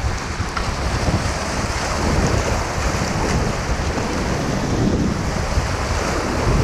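Class III river whitewater rushing steadily, with wind buffeting the microphone.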